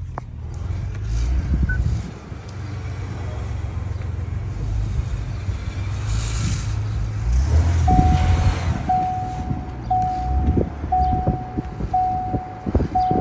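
Low, steady grinding rumble from a 2018 Lincoln Navigator: the noise that five years of dealer visits have not cured. About eight seconds in, a single-tone warning chime starts sounding about once a second, with a few knocks alongside it.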